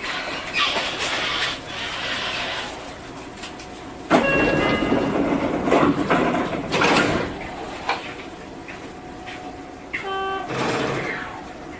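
Platform sounds around a stopped Seibu 30000 series commuter train just before it departs. About four seconds in there is a sudden loud rush with a brief chime, and about ten seconds in a short buzzer tone sounds.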